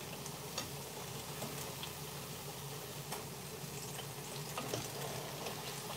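Food sizzling as it fries in oil in a pan, a steady crackling hiss, with a few light clicks of a plastic slotted spoon against the pan as the pieces are stirred and turned.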